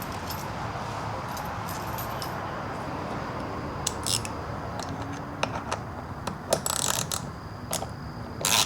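Small metal clicks and clinks of bolts and tools being handled while the fuel line fitting's 6 mm bolts are started by hand, over a steady hiss. The clicks begin about halfway through and come thicker near the end.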